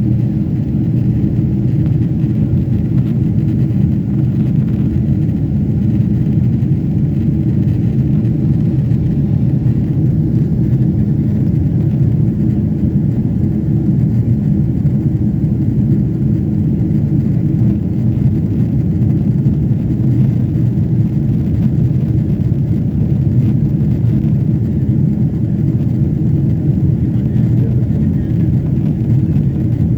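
Steady low drone of an airliner cabin in flight: engine and airflow noise, unchanging throughout.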